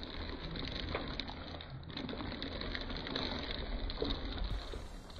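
Takeout food and its packaging being unpacked and handled, with faint rustling and a few light clicks and knocks.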